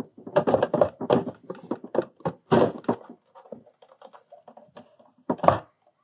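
Two 12 V sealed lead-acid scooter batteries being handled and set down in the plastic battery tray of a Razor E300: a run of irregular knocks and thunks, with a single loud knock near the end.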